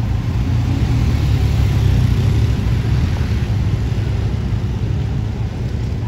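Engines of a fire engine and police motorcycles driving past close by: a steady low engine noise, loudest about two seconds in.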